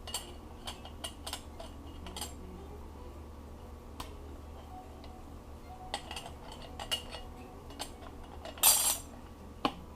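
Metal transmission parts clinking and tapping as they are handled on a workbench, with scattered light clicks and a louder short clatter near the end.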